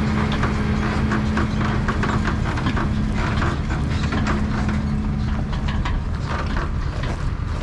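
Farm tractor engine running steadily, with frequent irregular clicks and knocks over it. A steady hum stops about six seconds in.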